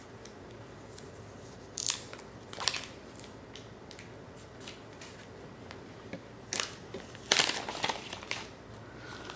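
Handling noise from a smartphone and its packaging being unboxed: short plastic crinkles and light clicks, a few about two to three seconds in and a denser run around seven to eight seconds.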